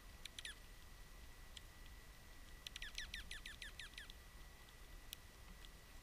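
A small songbird calling: a brief chirp just after the start, then, about two and a half seconds in, a quick series of about eight downslurred chirps.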